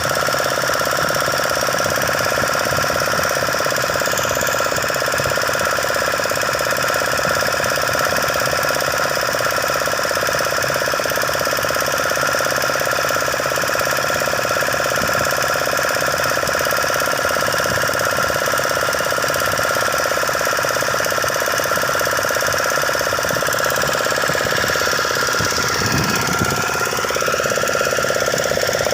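An engine running steadily, with a knocking quality; near the end its pitch shifts up and down.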